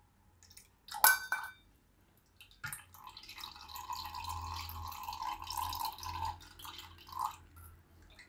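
A sharp clink of metal on glass, then a thin stream of bael sharbat trickling from a steel tea strainer into a glass for about three and a half seconds before tapering off.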